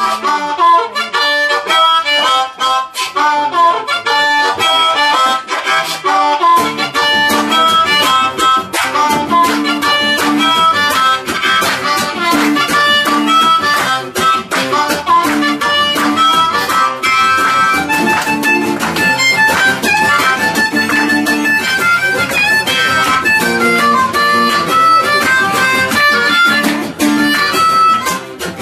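Harmonica playing an instrumental solo line of held and moving notes over a strummed acoustic guitar.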